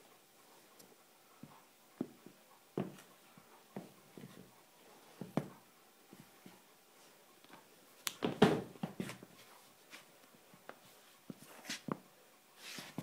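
Sneaker soles shifting and stepping on a hardwood floor: scattered light knocks and scuffs, with a louder cluster of scuffing knocks about eight seconds in.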